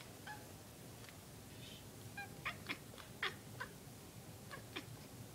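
Domestic cat making a series of short, high-pitched squeaks, mostly grouped in quick pairs from about two seconds in.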